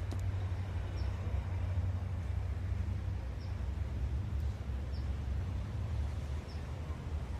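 Outdoor ambience: a steady low rumble, with a small bird giving short high chirps every second or two.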